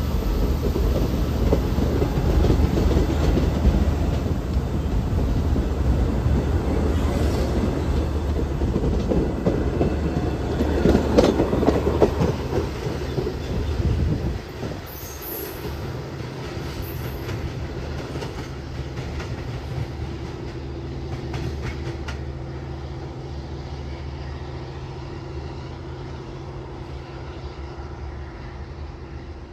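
Long Island Rail Road diesel train's bilevel coaches rolling past at close range, wheels clicking over the rail joints. The noise drops off sharply about 14 seconds in as the last car clears, leaving a quieter, slowly fading rumble as the train pulls away.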